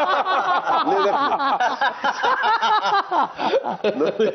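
Several men laughing together, overlapping chuckles and laughter.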